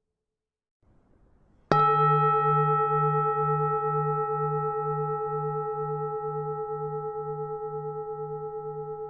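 Buddhist temple bell struck once about two seconds in, ringing on with several clear tones and a low wavering hum that fade slowly.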